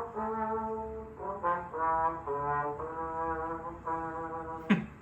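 A brass instrument playing a series of held notes as a comic sound effect, its pitch stepping up and down from note to note. A brief sharp sound cuts in near the end.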